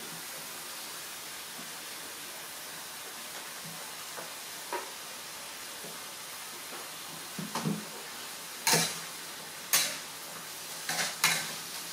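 Green vegetables frying in a steel wok on a gas burner, a steady sizzling hiss. From about seven seconds in, a metal spatula scrapes and knocks against the wok in several sharp strokes as the greens are stirred.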